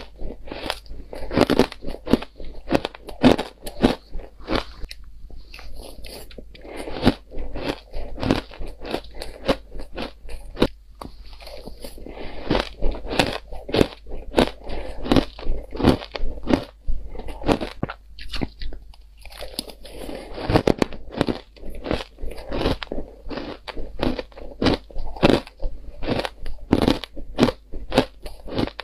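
Shaved ice being crunched and chewed in the mouth close to the microphone: a rapid run of crisp crunches, with a few short pauses between mouthfuls.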